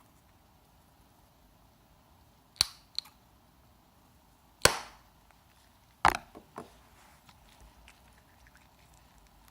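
A handful of sharp snaps or pops: one about two and a half seconds in with a lighter one just after, a louder one near the middle, and another about six seconds in followed by two small ones.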